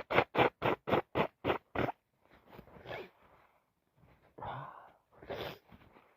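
A person with a heavy head cold blowing her nose into a tissue in a quick run of about eight short blows, about four a second, fading off. A few softer, breathy nasal bursts follow.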